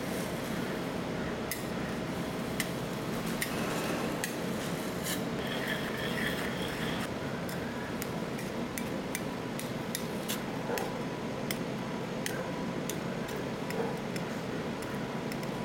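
Metal spatulas scraping and clicking against the steel cold plate of a rolled ice cream counter, with many irregular sharp taps over a steady background noise.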